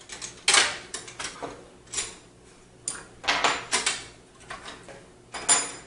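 Metal expansion-slot covers on the back of a PC case being unscrewed and pulled out, clattering and scraping against the steel chassis in about half a dozen short bursts.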